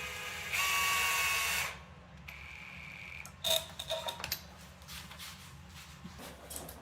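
A power drill runs in short bursts, the longest and loudest lasting about a second. A few sharp clicks and knocks follow near the middle.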